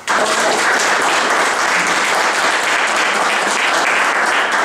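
A group of people applauding, starting abruptly and clapping steadily throughout.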